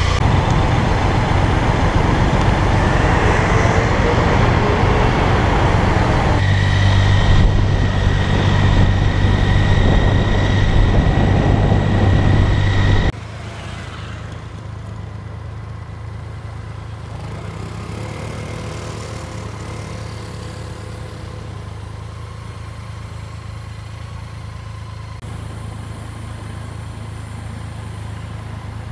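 BMW K75 inline three-cylinder motorcycle engine running loudly for about thirteen seconds, then cut off abruptly and replaced by a quieter, steady hum of city traffic.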